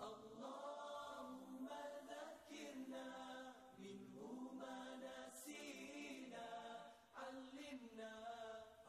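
Voices chanting or singing together, a slow melody of long held notes with short breaks between phrases, starting abruptly.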